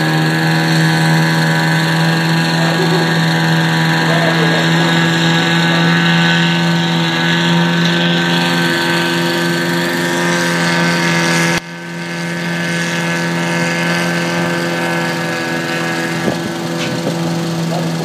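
Kenworth logging truck's diesel engine running at a steady speed while its self-loader crane works, a hum with a strong, even pitch. About twelve seconds in the sound drops suddenly and then builds back up.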